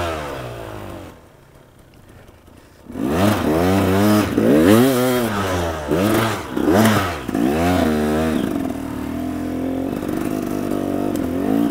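Enduro motorcycle engine on a forest trail: after a quieter spell of about two seconds it revs up and down about five times, its pitch rising and falling with each blip of the throttle, then holds a steady pitch for the last few seconds.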